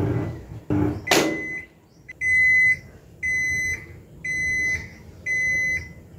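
Haier top-load automatic washing machine churning a soapy load, then beeping four times about once a second, each a steady high tone about half a second long: the signal that the wash cycle has finished. Just before the beeps there is a short rising sweep.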